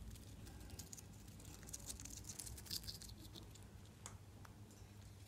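A hamster nibbling and chewing a green leaf: faint rapid crunching and clicking, densest around two to three seconds in, with a couple of sharper clicks a little later.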